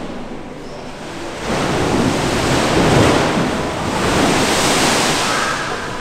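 Water rushing and breaking as a machine-made wave surges down a large wave flume: a loud rushing that starts suddenly about a second and a half in, swells twice and eases near the end.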